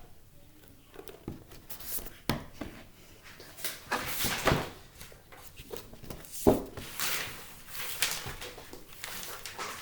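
Rustling and handling noises: a string of short swishes, with a sharp tap about six and a half seconds in.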